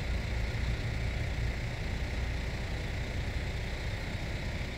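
Steady low engine rumble from nearby vehicles.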